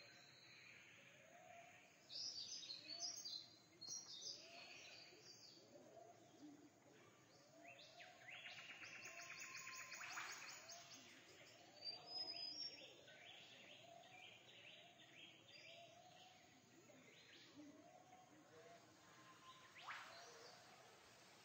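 Faint bird calls over a quiet background hiss: clusters of high chirps and rapid trills, with a softer short call repeating about once a second.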